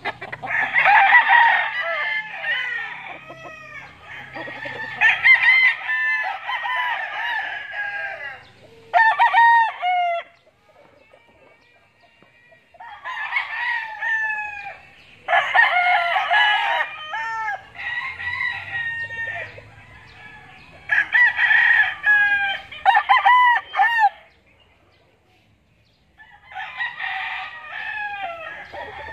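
Several gamecocks crowing one after another and over each other, in bouts of a few seconds with two lulls of about two seconds.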